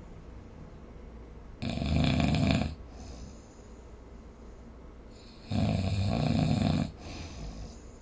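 A person snoring in sleep: two loud snores about four seconds apart, each lasting about a second, with quieter breathing in between.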